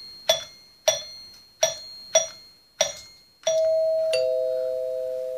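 Dual-tone 'ding-dong' chime doorbell's metal tone bars: a run of six short, bright metallic strikes about half a second apart that die away quickly. Then the high E bar is struck and rings on, followed moments later by the low C bar, a clear ding-dong with both notes sustaining.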